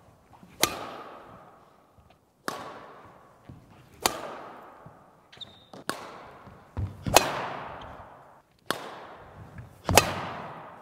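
Badminton racket smashing shuttlecocks: about seven sharp cracks, one every second and a half or so, each ringing out in the echo of a large sports hall.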